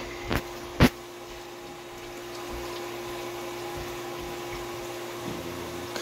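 Water from a garden hose running steadily into a sump pit, filling it before the sump pump kicks on, under a steady low hum. Two sharp clicks under a second in, the second one loud.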